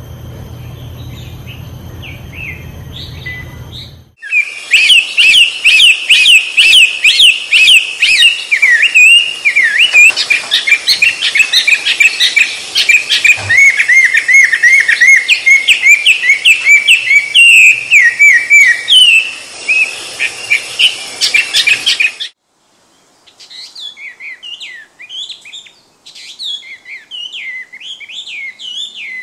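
Hwamei (laughingthrush) singing: after a few seconds of low steady hum with faint bird notes, a loud, fast song of rapidly repeated whistled notes begins and cuts off suddenly about 22 seconds in. After a short break a quieter run of varied song phrases follows.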